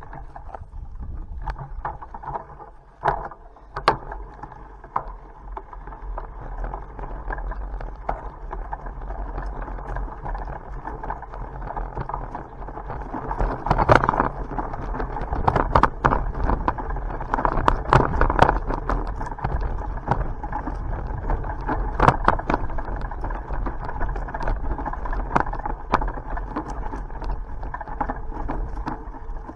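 Riding noise from a bicycle: a steady rumble of tyres rolling on the road, with frequent sharp clicks and knocks from the bike rattling over bumps, busier and louder in the second half.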